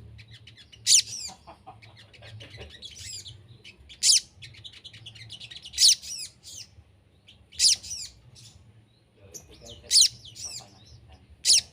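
A small songbird, the bird known in Indonesia as sogon, repeating a short, sharp, high call six times, with softer twittering chirps in between. This is a lure call played to draw wild sogon birds into calling back.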